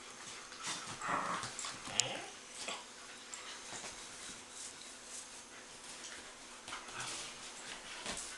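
Young dogs playing, with short whimpers and yips, loudest about a second in, and a sharp click near two seconds.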